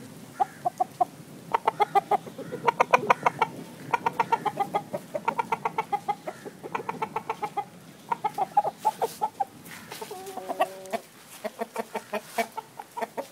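Chicken clucking in rapid runs of short clucks, several a second, with a longer drawn-out call about ten seconds in.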